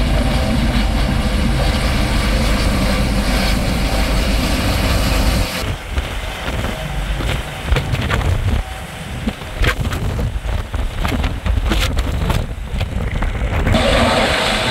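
Helicopter running close by, its rotor and engine a steady heavy rumble, mixed with wind buffeting the microphone. About halfway through the sound turns duller and choppy with irregular gusts and knocks, then fills out again near the end.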